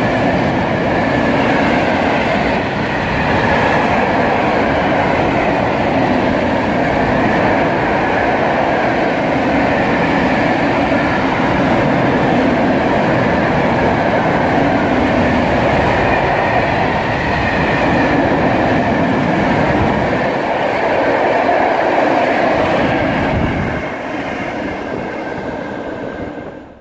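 Freight train of loaded open-top coal wagons rolling past close by: steady wheel-on-rail running noise with a high ring over it. About 24 s in the noise drops as the last wagons go by, then it fades away.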